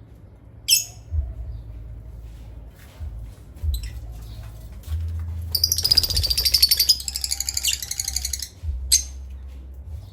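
Pet parrot chirping: a sharp call about a second in, another near the end, and a rapid chattering trill lasting about three seconds in the middle.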